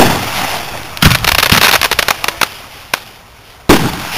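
Aerial firework shells bursting: a loud boom at the start, a dense crackling from about a second in, and another boom near the end.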